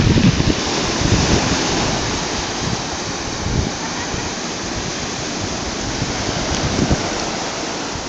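Black Sea surf breaking and washing up a sand beach: a steady rushing hiss. Gusts of wind rumble on the microphone a few times.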